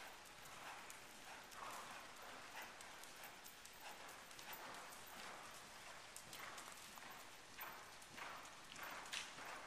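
Faint, soft hoofbeats of a Dutch Warmblood gelding moving over sand arena footing under a rider, landing about once a second.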